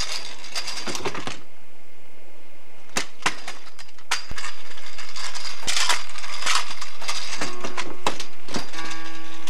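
Kick scooter rolling and clattering on asphalt, with several sharp clacks of the deck and wheels hitting the ground. Near the end, steady musical tones come in.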